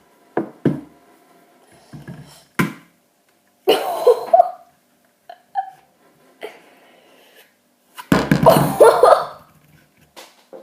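Pliers knocking against and crushing an apple: a few sharp knocks in the first three seconds, then two longer, louder bursts of crushing, about four and eight seconds in.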